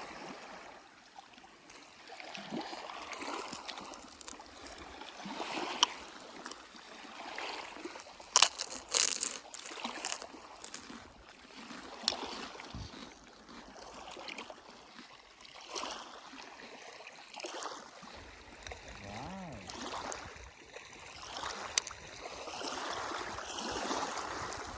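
Small waves lapping and washing on the shore of Pangong Tso, a saltwater lake, in uneven swells every few seconds, with a few sharp knocks.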